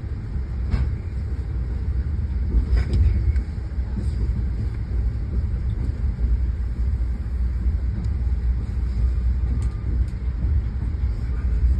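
Steady low rumble of a moving train heard from inside the carriage, with faint knocks about a second in and again near three seconds.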